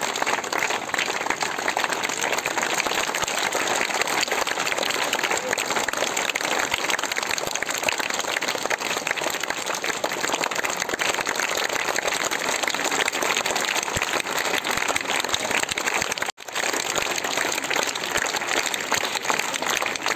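A large crowd of schoolchildren clapping steadily and continuously, a dense patter of many hands. The sound cuts out abruptly for a moment about sixteen seconds in.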